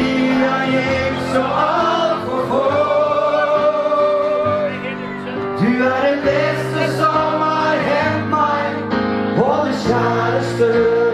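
A male vocalist singing a slow Norwegian ballad live into a microphone, with several long held notes, over keyboard accompaniment.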